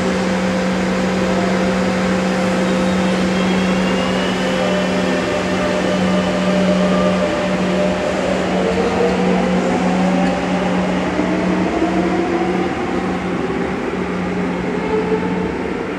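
Madrid Metro electric train pulling out of the station: a steady electrical hum over rumbling running noise, with a traction-motor whine that rises slowly in pitch during the second half as the train gathers speed.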